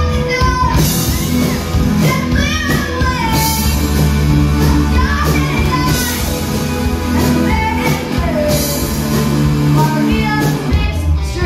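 Live rock band playing: electric guitar, drum kit with cymbals and a young female lead singer, loud and continuous.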